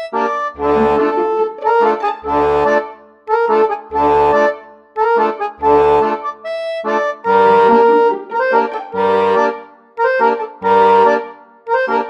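Instrumental background music with a steady beat of repeating chords and regular bass notes.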